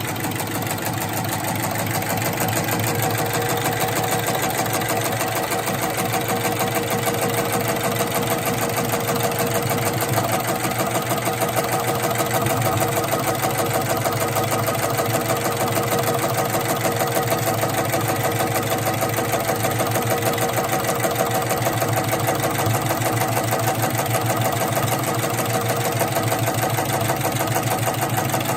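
SEWPRO 1306CH heavy-duty programmable sewing machine running steadily at about 400 RPM, stitching a programmed pattern through three layers of thick webbing with heavy thread, a fast even rhythm of needle strokes.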